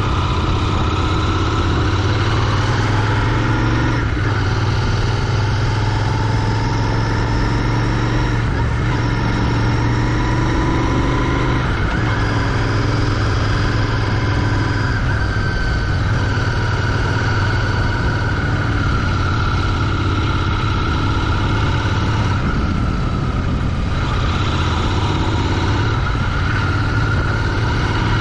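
Royal Enfield Continental GT 650's parallel-twin engine running through its stock exhaust on the move, a steady drone whose pitch rises and falls slightly now and then.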